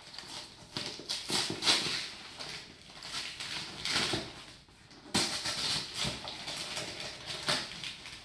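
Wrapping paper being torn and crinkled by hand as a present is unwrapped, in a string of irregular rustling bursts, with a sharper, louder rip about five seconds in.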